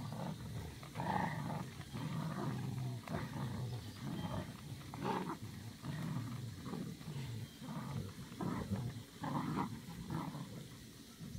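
St. Bernard puppies growling in repeated short bouts while playing tug of war over a plush toy.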